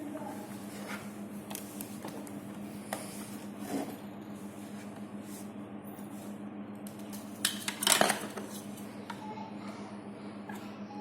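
Scattered light clicks and clattering of small hard objects being handled, with a louder clatter about eight seconds in, over a steady low hum.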